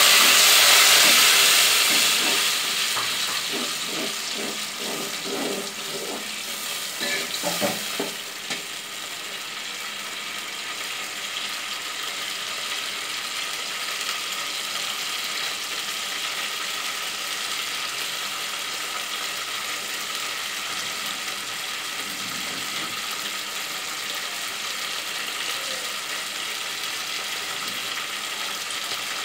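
Water poured onto hot ghee and golden-brown fried onions in a pot: a loud hiss and sizzle that eases over the first few seconds into steady bubbling as the liquid comes to a boil. A few knocks sound between about three and eight seconds in.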